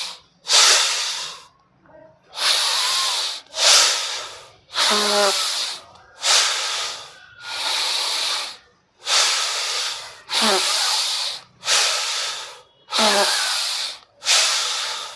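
A person breathing deeply and forcefully in and out as a yogic deep-breathing (pranayama) exercise. The breaths come in a steady rhythm of about one hissing breath sound per second, each separated by a brief pause.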